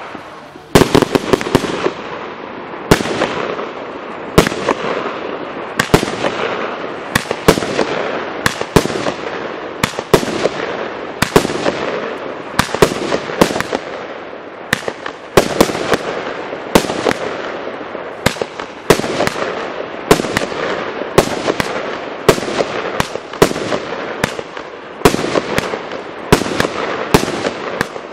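Tropic TB408 'Revolution' 150-shot firework battery (cake) firing shot after shot: a sharp report roughly one to two times a second, over a steady hiss between the shots.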